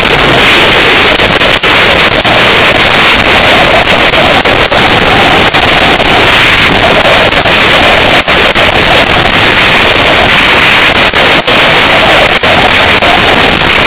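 Wind buffeting over the microphone of a camera mounted on a moving motorcycle, loud and distorted, with a few brief dropouts.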